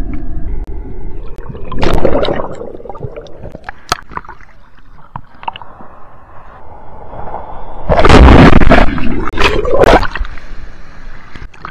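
Seawater gurgling and sloshing around a camera in the surf as it goes under and back above the surface, with a short loud rush about two seconds in and a longer, louder rush of churning whitewater from a breaking wave about eight seconds in.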